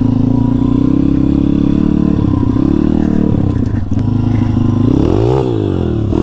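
Kayo pit bike's YX 140cc four-stroke single-cylinder engine running under the rider at a steady pitch, then revved up and back down about five seconds in and opened up again near the end.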